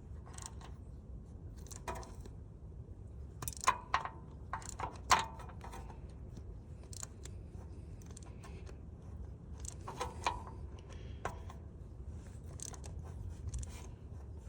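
Scattered light metal clicks and scrapes from hand tools as a thread tap is worked into a drilled-out, stripped header bolt hole in an LS engine to cut threads for a Helicoil. The sharpest clicks come in a cluster a few seconds in and again near the middle.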